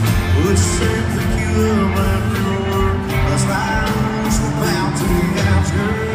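Live country rock band playing loud through stadium speakers, with drums, bass and a singing voice.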